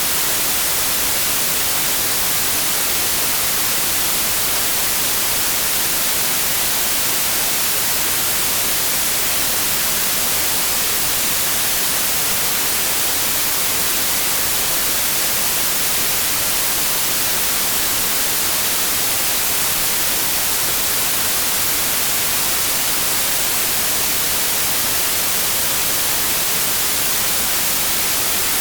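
Steady synthetic white noise: an even, unbroken hiss, strongest in the high treble.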